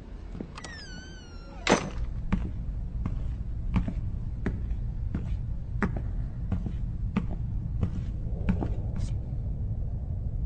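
A high, wavering squeak like a dry metal hinge, then a loud clang. After the clang a machine-like rumble runs steadily, with a short click about every 0.7 seconds.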